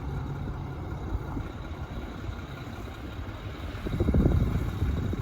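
Semi truck's diesel engine running at idle, a steady low rumble that grows louder about four seconds in.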